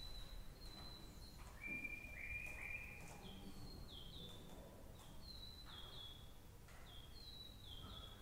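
Imitation nightingale calls played by the ensemble's oboist: a run of clear whistled notes, first a few held at one high pitch, then a lower held note, then repeated short notes that each step down in pitch.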